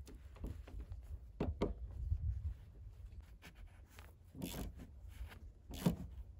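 Small clicks and short scraping handling noises of a rear wiper arm being fitted onto its spindle on a car's tailgate, a few at a time with pauses, over a low steady rumble.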